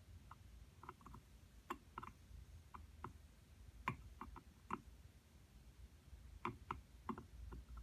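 Flux crackling and popping under a soldering iron tip as it reflows a solder joint on a circuit board: faint, irregular small pops, a few a second.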